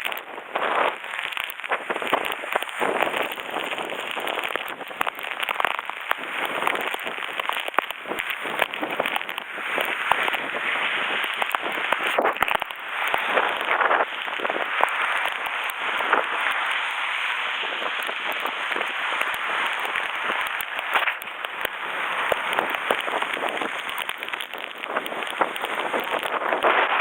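Heavy typhoon rain pouring down steadily, a dense crackle of drops striking nearby surfaces, swelling and easing with the storm.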